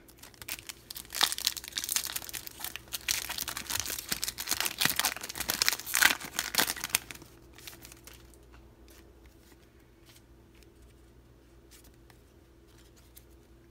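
The foil wrapper of a Pokémon TCG three-card booster pack crinkling and tearing open with dense crackles. After about seven seconds it gives way to faint scattered clicks and rustles as the cards are handled.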